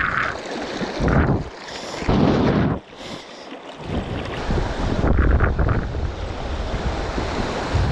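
Fast-flowing river water rushing, with wind buffeting the microphone; the rush swells and dips unevenly in the first few seconds, then settles into a steady rumble.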